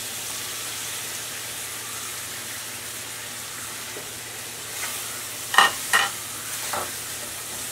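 Diced apples sizzling as they land in hot melted sugar in a non-stick frying pan, a steady hiss. A little past halfway a spatula clacks sharply twice, with a few softer knocks around it.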